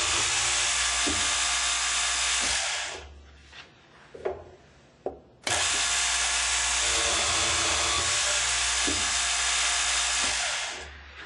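GANNOMAT DB21 multi-spindle dowel boring machine end boring a cabinet panel: the drill motor and spindles run with a loud, steady whir that winds down about three seconds in. A few knocks fall in the pause, then the machine starts again abruptly for a second boring cycle, which winds down near the end.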